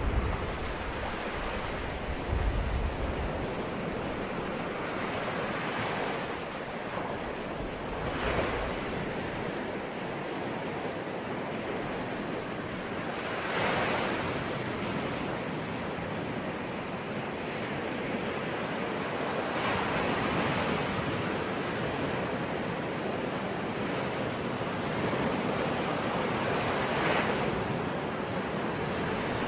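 Sea waves breaking on shore: a steady wash of surf with a louder wave swelling in every several seconds, about five times. A low rumble sits under the first few seconds.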